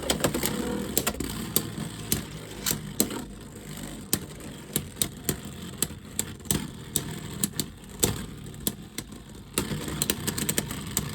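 Two Beyblade X spinning tops battling in a plastic stadium: a steady whirring hum that fades over the first few seconds, with repeated sharp, irregular clacks as the tops hit each other and the stadium wall.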